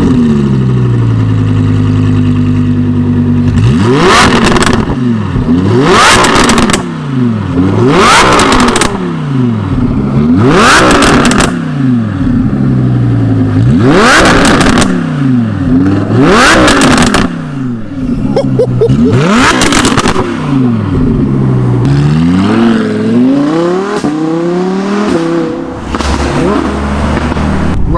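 Audi R8 V10 Plus's 5.2-litre V10 through an aftermarket Quicksilver exhaust, just started and settling to idle, then revved hard again and again, about every two to three seconds. Each rev climbs quickly and drops back, and the last couple are smaller.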